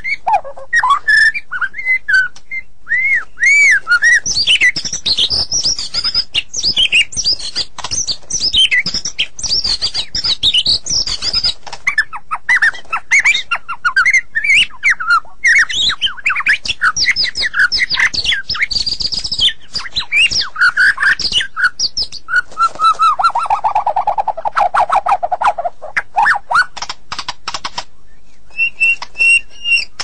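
White-rumped shama (murai batu) singing a long, varied song of fast whistled notes that glide up and down. A little past the middle it drops into a lower, rapid trill lasting a few seconds.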